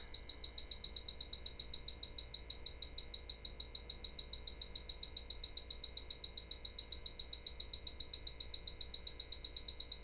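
Bacharach H10 Pro refrigerant leak detector beeping fast and evenly, several short high beeps a second, as its probe is held at the coil. The quick beep rate is its sign that it still senses the R-134a leak, here a faint one.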